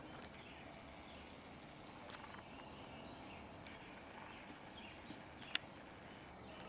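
Faint outdoor quiet with a few soft taps and one sharp tap about five and a half seconds in: a pileated woodpecker pecking at a dead oak tree.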